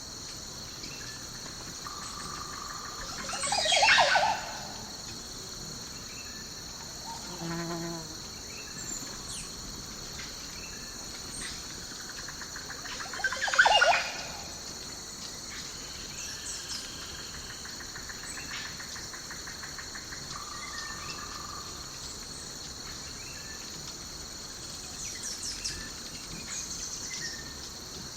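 Daytime nature ambience: a steady, high chorus of crickets and other insects with scattered bird calls, and two louder bird calls, one about four seconds in and another about ten seconds later.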